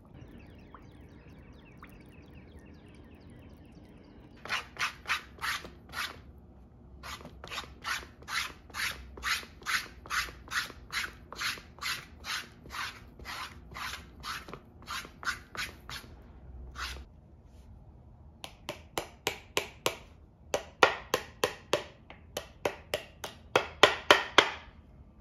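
A leather shoe insole being scraped by hand with a tool in quick back-and-forth strokes, about two to three a second, in several runs with short breaks. The strokes are loudest near the end.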